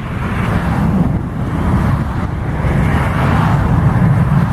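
Boeing 727-200's three Pratt & Whitney JT8D turbofans giving a steady, deep jet rumble as the airliner climbs away after takeoff.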